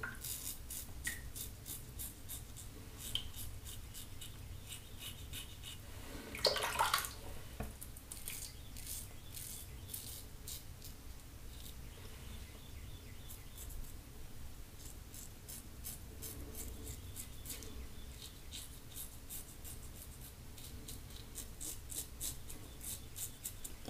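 Double-edge safety razor with a Rockwell blade scraping through stubble in short, light strokes: a faint run of crackly scratches. One brief, louder sound comes about six and a half seconds in, and near the end a synthetic shaving brush dabs lather on the face.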